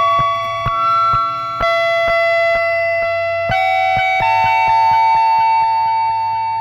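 Electronic music from a Korg Electribe groovebox. Held synthesizer chords step to new pitches every second or so over a beat of short clicks about two a second.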